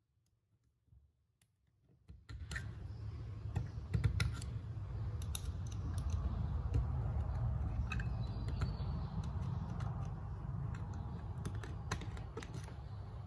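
Small clicks and taps of a screwdriver against a cast brake caliper, scattered over a steady low rumble that starts about two seconds in, as the slide rubber seals are worked at; the first two seconds are near silent.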